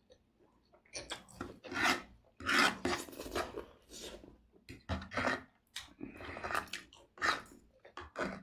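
Spicy ramen noodles being slurped and chewed, a run of irregular short noisy bursts about one or two a second.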